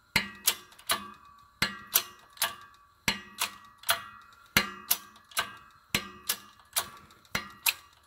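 Shop press being worked to push a bearing into a supercharger snout: sharp metallic clicks with a short ring, coming in regular groups of three, about six groups.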